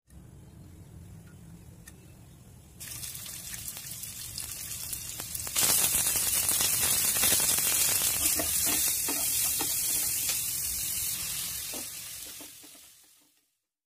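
Hot oil sizzling in a pan as onion and green capsicum pieces fry, getting louder in steps and loudest from about five and a half seconds in. There are a few knocks of a wooden spatula stirring, and it fades out near the end.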